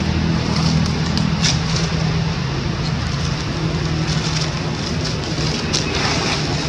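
A steady low motor-like drone with a constant hiss, and a few brief crackles, one about a second and a half in and more near the end, as a monkey moves over dry leaves.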